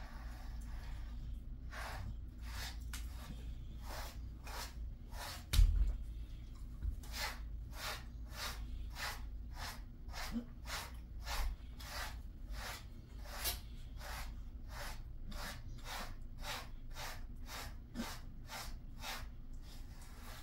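A grooming brush drawn again and again through a Jindo dog's thick coat, rhythmic swishing strokes about two a second. A single dull thump about five and a half seconds in is the loudest sound.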